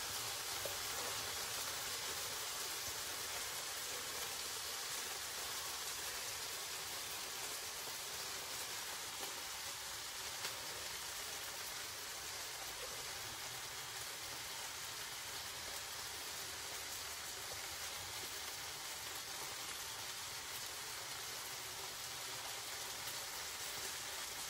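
Chicken frying in a pan, a steady sizzling hiss.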